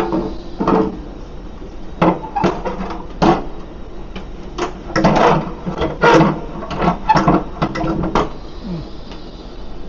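Irregular knocks and clatters, about a dozen in eight seconds, with the busiest run near the middle.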